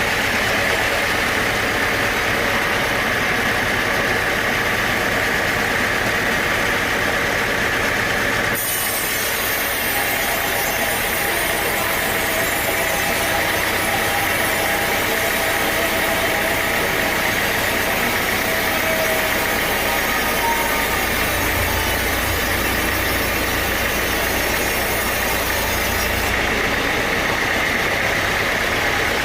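Sawmill machinery running steadily, an engine-like drone. Its tone changes abruptly twice, about a third of the way in and again near the end.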